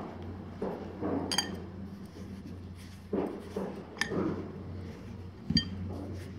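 Hands rubbing ghee into flour (maida) in a glass mixing bowl: soft scraping and rustling, with three sharp ringing clinks as fingers or rings knock against the glass.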